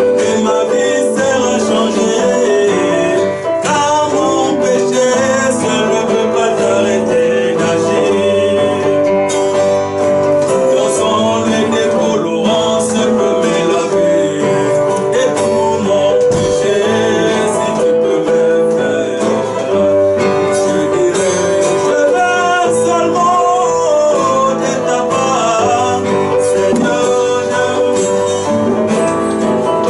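A man singing while playing an acoustic guitar, a continuous song with no breaks.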